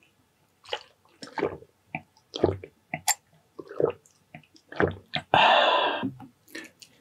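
Wet squishing and smacking sounds of eating saucy chicken adobo in coconut milk: a string of short noises, then a louder, longer wet noise lasting about a second, five seconds in.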